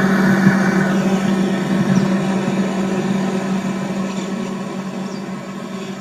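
Commercial glass-door refrigerator's fan and compressor running: a steady mechanical hum with a low tone, growing gradually quieter.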